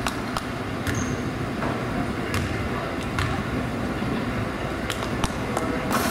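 Basketball bouncing on a hardwood gym floor during a free-throw routine: several sharp knocks, irregularly spaced, over a low murmur of crowd voices, with a short high squeak about a second in.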